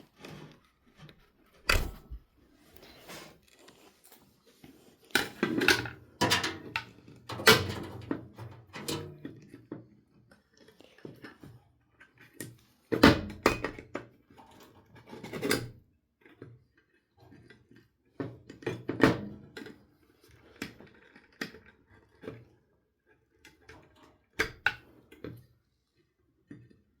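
Irregular taps, clicks and short scrapes of a hand tool cutting and prying at a disassembled hard drive's parts, with quiet gaps between them. The loudest knock comes about halfway through.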